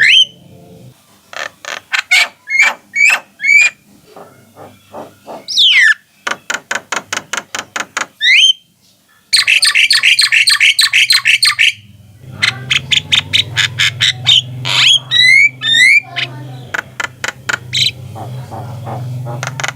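Javan myna calling in a string of bursts: rapid runs of harsh, evenly spaced notes mixed with short rising whistles, with one dense trilled run in the middle. A steady low hum runs under the calls in the second half.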